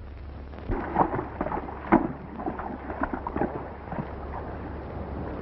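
Horses' hooves clopping and splashing through a shallow, rocky creek in irregular, uneven steps, starting about a second in, over the low hum of an old film soundtrack.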